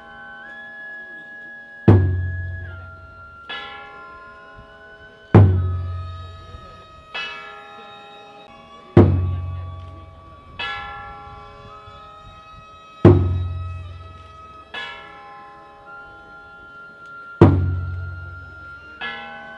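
Slow Shinto procession music: a large drum struck heavily about every three and a half to four seconds, each stroke answered by a lighter ringing metal strike, under a flute holding long high notes that step slowly in pitch.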